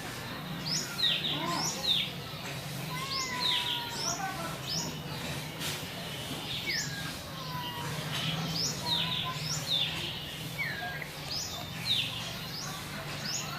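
Small birds chirping over and over in quick, short, falling-pitch calls, with a few lower gliding calls among them, over a steady low hum.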